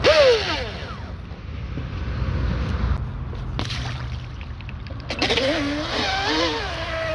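Electric RC speed boat with a 4074 2000kV brushless motor: a short whine falling in pitch right at the start, then from about five seconds in the motor's whine rises and wavers as the boat powers away across the water, settling into a steady high tone near the end. Low wind noise runs underneath.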